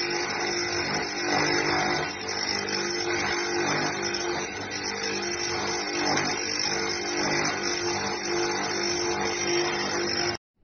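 Kanazawa electric coffee grinder running, a steady motor whir with a constant hum, which cuts off suddenly near the end.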